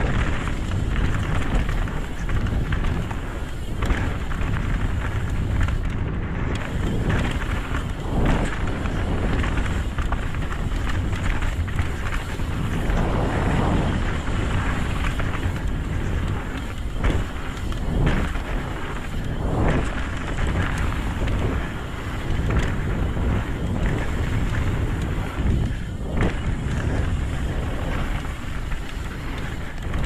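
Wind rushing over an action camera's microphone on a mountain bike riding down dirt singletrack, with the tyres rolling on dirt and short rattles and knocks from the bike over bumps every few seconds.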